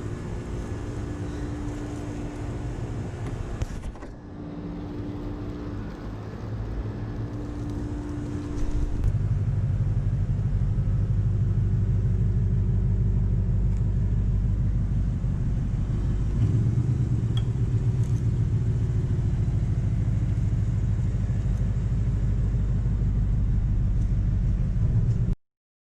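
A 2020 Mustang GT's 5.0 V8 engine running with a steady low rumble. It gets clearly louder about nine seconds in and holds steady until the sound cuts off abruptly near the end.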